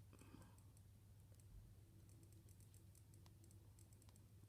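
Near silence: a faint low hum with scattered faint ticks and clicks.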